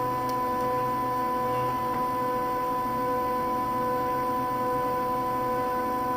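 Stepper motors of a home-built CNC hot-wire foam cutter driving the wire at a constant rate during a cut: a steady whine of several held notes over a fainter low hum.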